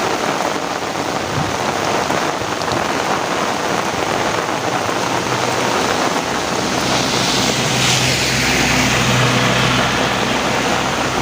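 Heavy rain pouring steadily. About halfway through, a low rumble with a steady hum underneath rises and holds to the end.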